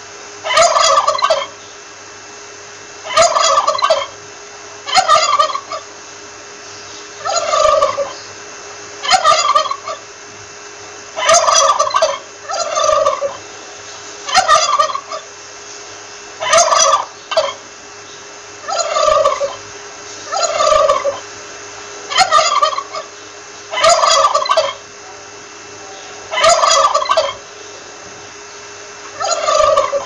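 A male turkey gobbling over and over, a rapid rattling gobble about every two seconds.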